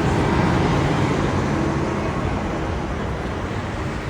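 Steady rumbling noise of a vehicle running, fading slightly over a few seconds.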